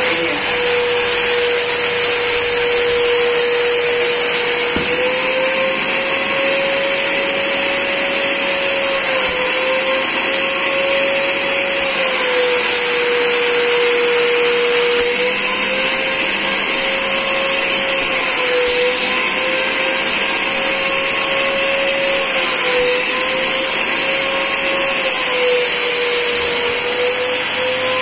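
Fisch MB-20 wet/dry vacuum running in carpet-shampoo mode, with both its suction motor and spray motor on. It makes a loud, steady motor whine that drifts slightly up and down in pitch several times.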